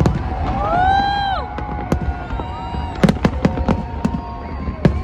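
Fireworks going off: rapid sharp bangs and crackles, thinning out in the middle and coming thick again from about three seconds in. About a second in, a loud held pitched wail rises, holds and falls away.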